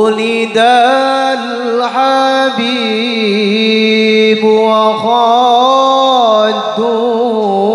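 Male voice singing an Arabic sholawat, a devotional song praising the Prophet, in long drawn-out notes with wavering melismatic ornaments. The singing comes in abruptly right at the start.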